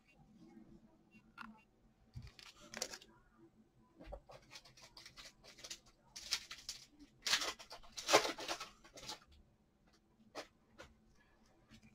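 Trading cards being handled and flipped through: papery rustles and light clicks of card stock, loudest about seven to eight seconds in.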